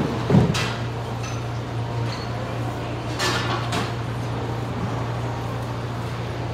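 A steady low machine hum runs throughout, with two dull thumps at the very start and a short scraping sound about three seconds in.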